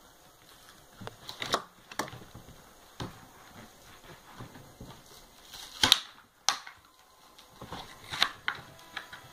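Hands handling a toy blaster and its packaging: irregular rustling and crinkling with several sharp clicks, the loudest two about six seconds in.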